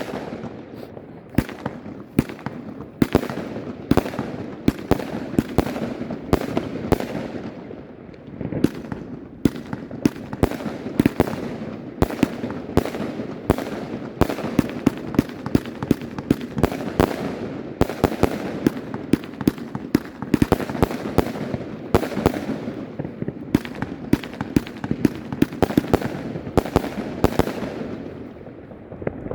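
Argento Pyroshow 2000-A Minevra compound fireworks cake firing: a rapid, unbroken stream of sharp bangs and crackling reports, several a second, over a continuous rumble, thinning briefly about eight seconds in and again near the end.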